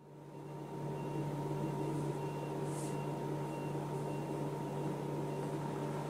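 Room tone with a steady low electrical hum, fading in over the first second, with a brief soft hiss near the middle.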